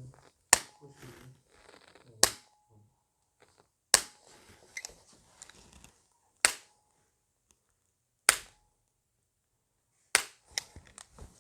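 Activator V chiropractic adjusting instrument firing, a sharp click with each impulse, six times at about two-second intervals, with a couple of fainter clicks near the end.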